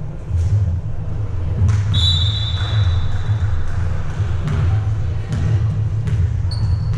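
Ball bouncing on a hard gym floor amid voices and a steady low rumble, with scattered sharp knocks. About two seconds in a high steady whistle-like tone sounds for about a second and a half.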